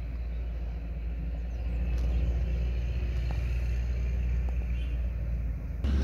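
Steady low rumble of outdoor background noise, with a few faint clicks.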